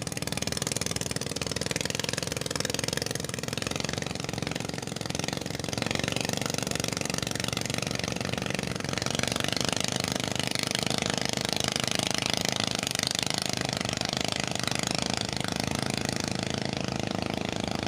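An engine running steadily with an even, rapid pulse, under a broad steady noise.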